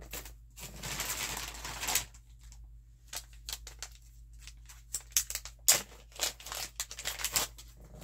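Plastic packaging rustling for about a second and a half, then a run of light clicks and taps as bead packets and strands are handled.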